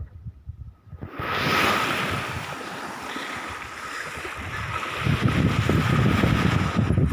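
Small waves washing onto a sandy beach, a steady hiss that starts about a second in, with wind buffeting the microphone and rumbling harder from about five seconds in.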